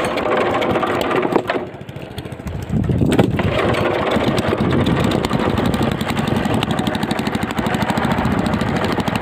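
Small boat engine running, louder from about three seconds in and then steady, with a fast, even chugging.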